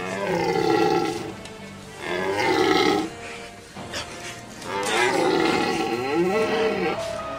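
Rutting Manchurian wapiti (izubr) stag roaring: three long, drawn-out calls, each bending in pitch, the last one the longest.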